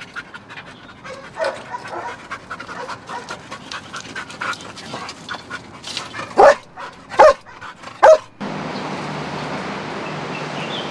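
Search-and-rescue dog panting in the rubble, then barking three times about six seconds in, the alert that it has found the hidden person. Steady background noise follows after a cut.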